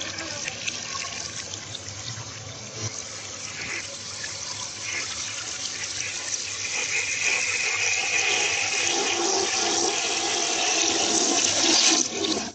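Toilet flushing: water swirling and draining down the bowl, growing louder and then cutting off suddenly near the end.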